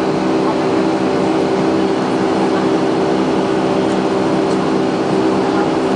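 Boeing 757 turbofan engines at climb thrust just after takeoff, heard from inside the cabin over the wing: a loud, steady roar with several steady droning tones running through it.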